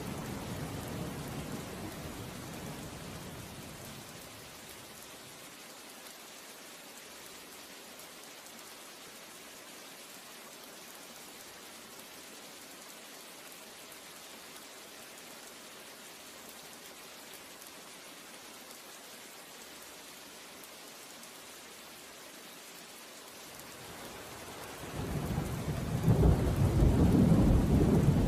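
Steady rain hiss with rolling thunder: one low rumble dies away over the first few seconds, and a louder roll builds from about 25 seconds in.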